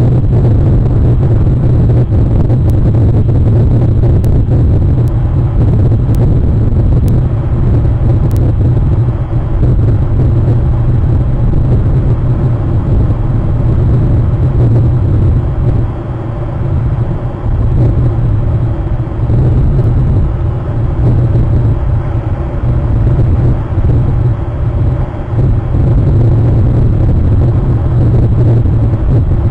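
A loud, steady low rumble, with a few faint ticks in the first few seconds.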